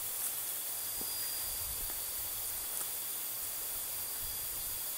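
Steady outdoor background hiss with a faint, thin high-pitched tone running through it.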